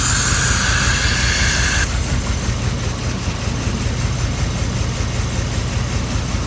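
2007 GM 5.3 L LS V8 idling with a steady drone and lifter tick, which the owner puts down to two bad new lifters fitted during a DOD delete. A loud hiss runs over it and cuts off suddenly about two seconds in.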